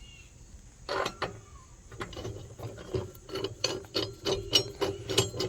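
Steady metallic clicking, about three sharp clicks a second, from the mower blade's mounting hardware as the blade goes back onto its spindle.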